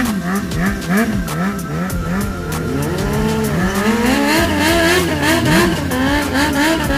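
BMW S1000RR's inline-four engine revving during a burnout, the revs rising and falling quickly about two and a half times a second at first, then in slower, longer sweeps, with the rear tyre spinning on the tarmac.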